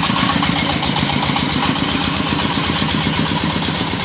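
Engine of a red-brick-making machine running steadily with a fast, even chugging, under a loud steady hiss of machinery noise.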